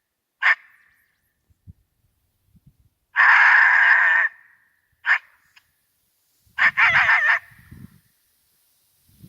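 Predator call used for coyote hunting: a short sharp note, then a held call about a second long, two brief notes, and a quick run of pulsing notes, all at about the same high pitch.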